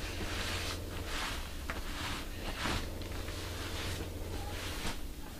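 Soft rustling and swishing of whole nappa leather hides being handled and shifted, several sweeps in a row, over a steady low hum.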